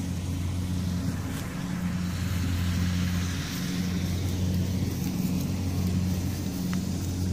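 Pickup truck engine running steadily at low revs, a low drone that swells and eases slightly a few times.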